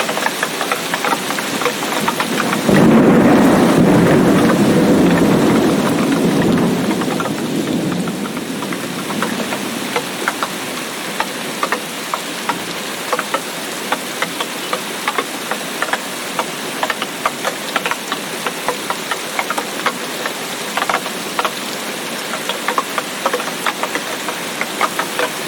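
Steady heavy rain with many sharp drops ticking close by. About three seconds in, a roll of thunder starts suddenly, deep and loud, then fades over about six seconds while the rain carries on.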